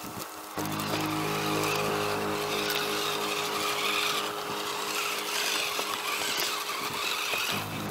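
HG P402 RC crawler's electric motor and gear drivetrain whining steadily as it drives over rough ground. The whine starts about half a second in and changes pitch near the end.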